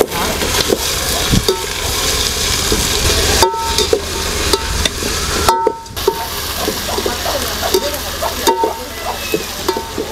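Sliced onions frying in hot oil in a metal pot, sizzling while a slotted metal ladle stirs and scrapes them along the pot; this is the stage of frying the onions down towards brown for biryani. The sound cuts out briefly twice, about three and a half and five and a half seconds in.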